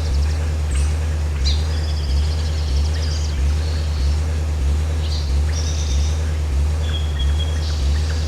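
Car engine sound effect from GarageBand's Movie Machine Live Loops: a low engine idle pulsing about twice a second, with birds chirping over it.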